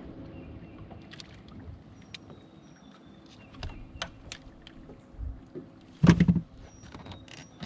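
Scattered clicks and light knocks of handling on a fibreglass bass boat, with one loud, short thump about six seconds in as the angler bends down to the deck.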